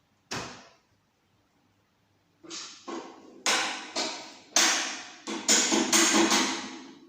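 Hammer blows on metal: one sharp strike, a pause, then a run of about a dozen strikes that come faster and louder, each leaving a metallic ring.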